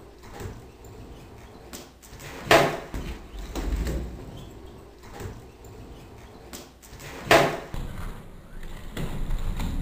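Skateboard on a concrete floor: urethane wheels rumbling as it rolls, with two loud sharp clacks of the board hitting the concrete, a little over two seconds in and again about seven seconds in, during fakie bigger flip attempts, plus a few fainter knocks.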